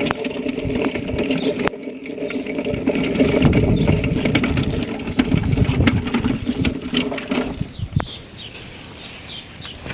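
Small engine running with a steady buzz, cutting out about eight seconds in; birds chirping afterwards.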